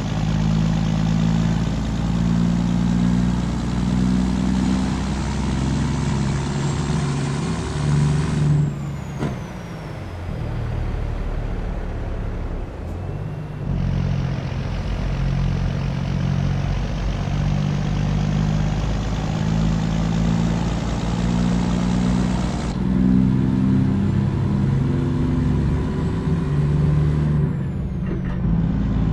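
Volvo FH truck's inline-six diesel running through a straight-pipe exhaust, a loud, steady deep rumble whose pitch shifts up and down every second or so. It drops in level for a few seconds partway through, then returns.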